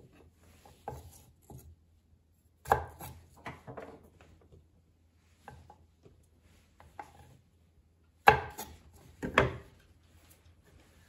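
Kitchen knife cutting the tough ends off fresh zenmai (royal fern) stems on a wooden cutting board: irregular knife strikes against the board, the loudest about three seconds in and twice near the end.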